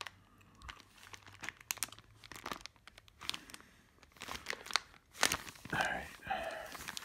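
Clear plastic hardware bags crinkling as they are handled and turned over, the screws and Allen wrench inside shifting; a run of irregular crackles.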